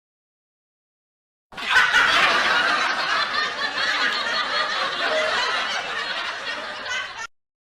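Laughter sound effect: many people laughing together, like an audience laugh track. It starts about a second and a half in, slowly dies down, and cuts off shortly before the end.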